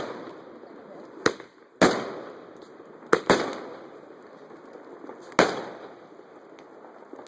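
Raging Bull 50-shot fan cake firework firing: about five sharp bangs at uneven intervals, each trailing off in a long echo.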